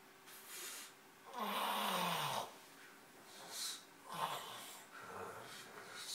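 A person snoring: a long, loud snore about one and a half seconds in, falling in pitch, then shorter snores and hissing breaths.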